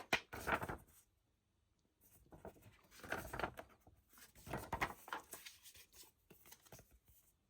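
Paper stickers and cards being handled and shuffled, a dry irregular rustling that stops briefly about a second in and picks up again.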